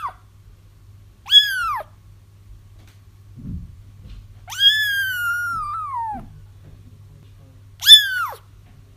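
Kitten crying loudly, three meows that each rise and then fall in pitch, the middle one long and drawn out. This is the crying of kittens that can draw a feral mother cat back to them.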